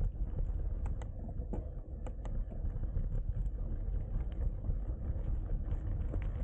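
Bicycle tyres rolling over a gravel road: a steady low rumble with many small clicks and ticks from stones and the bike's rattles.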